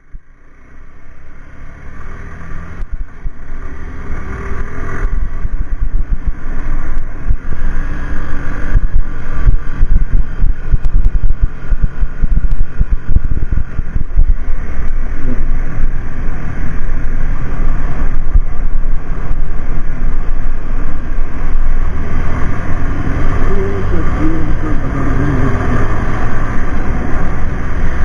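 A motorcycle on the move, heard from a handlebar-mounted camera: the engine running under heavy wind rumble on the microphone. The sound swells over the first several seconds, then stays loud and steady.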